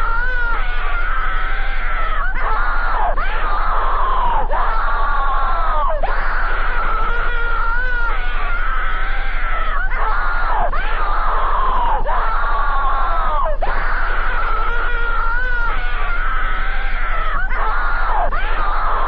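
Distorted, continuous screaming and wailing voices whose cries rise and fall in pitch and break every second or two, over a steady low hum.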